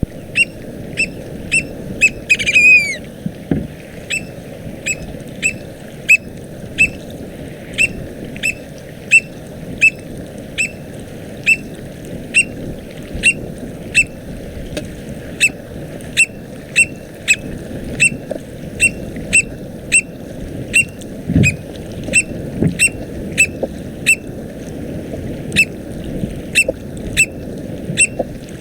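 American oystercatcher (northwestern Mexican population, Haematopus palliatus frazari) calling a single sharp note over and over, about one and a half times a second, over a steady low rush. About two seconds in comes a longer, downward-slurred call, the different call this bird gives when near its nest, eggs or chicks in the breeding season.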